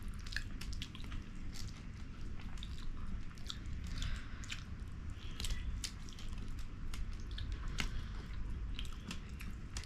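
Chewing and mouth sounds of people eating, with many small scattered clicks.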